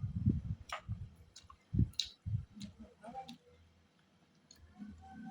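Close-up mouth sounds of someone eating: chewing with a few sharp smacking clicks over the first three seconds, then a quiet stretch.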